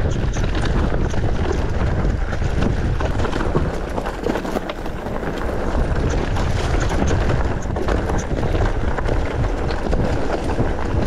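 Mountain bike rolling down a rocky trail: tyre noise and scattered rattling clicks from the bike under a steady rush of wind on the microphone, easing briefly about four seconds in.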